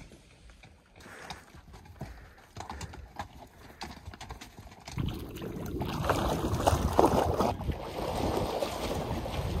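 Hooves of a pack string of horses and mules clopping on a rocky trail, heard as faint irregular clicks. About five seconds in, louder water splashing from a swimmer in a lake takes over, mixed with wind on the microphone.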